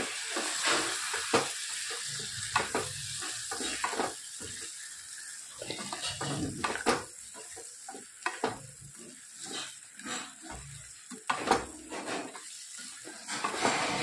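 Oil and spice masala sizzling in a pan while the fried and boiled undhiyu ingredients are tipped in and stirred, with a spoon scraping and knocking against the pan at irregular moments.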